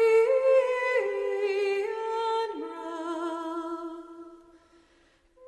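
Background music from a Konami video game soundtrack: slow, sustained, humming-like vocal or synth notes with vibrato, changing pitch every second or so, fading out about four seconds in to near silence.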